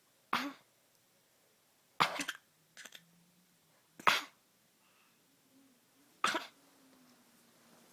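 A person coughing: four short, sharp single coughs about two seconds apart, with a fainter one just after the second.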